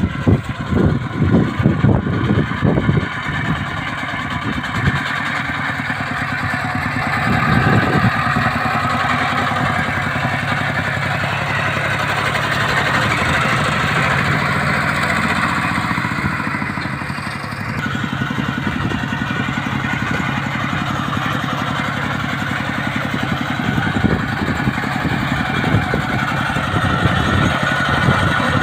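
Kubota bulldozer's engine running steadily, with a few loud knocks or clanks at the start.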